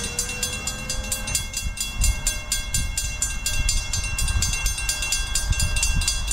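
Railroad grade-crossing bell ringing rapidly and steadily, about eight to ten strokes a second, as a train approaches, over a low, uneven rumble.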